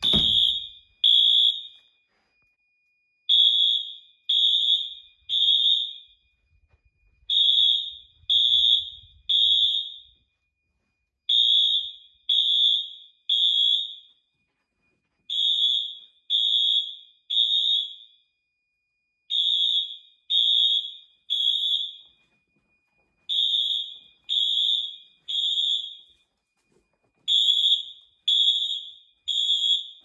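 Honeywell-branded Wheelock MT multi-tone fire alarm horns sounding together in code 3 temporal pattern: three short high blasts, then a pause, repeating about every four seconds. A faint steady high tone runs underneath, and there is a knock right at the start.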